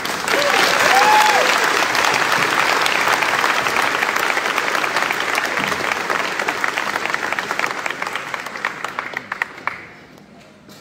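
Audience applauding, with a short cheer or two near the start; the clapping thins to scattered claps and dies away near the end.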